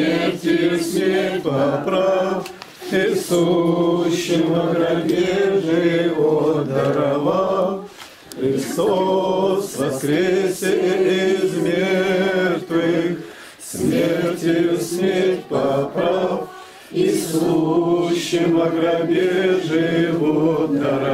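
A small group of people singing a church prayer chant together, in long held phrases separated by brief pauses.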